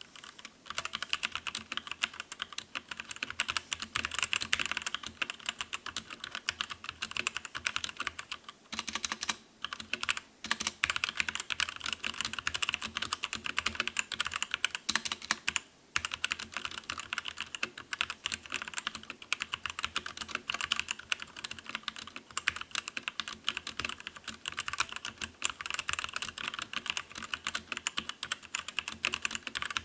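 Fast, continuous typing on a MOTOSPEED K87S mechanical keyboard with red linear switches, a quick stream of keystrokes that the typist calls very smooth and very quiet. It breaks for short pauses about 9 seconds in and again around 16 seconds.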